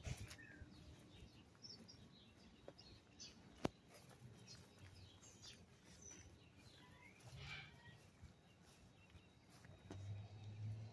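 Faint, scattered chirps of a small bird, with one sharp click a little under four seconds in.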